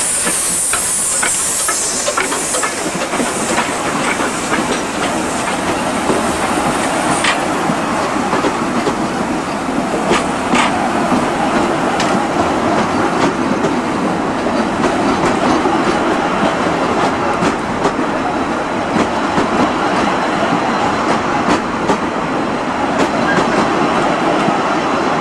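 Narrow-gauge steam train passing close by: steam hissing loudly at first and dying away after about seven seconds, then the coaches rolling past with wheels clicking over the rail joints.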